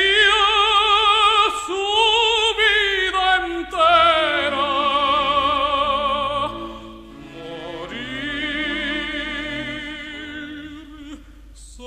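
Background music: a singer in operatic style holding long notes with a wide vibrato. The singing is loud in the first half, then softer.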